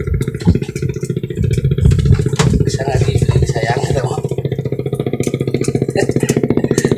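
A small engine running steadily, a low drone with a fast even pulse, with a few sharp clicks over it.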